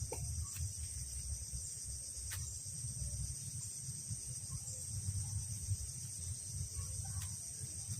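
Steady high-pitched insect chorus droning without a break, over a low rumble and a few faint clicks.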